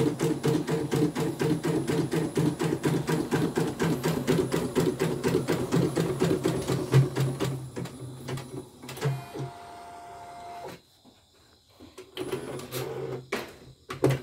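CNY computerized embroidery machine stitching in a rapid, even rhythm, running smoothly on its newly replaced motor. About seven and a half seconds in the stitching stops, followed by a brief steady whine and then a few clicks.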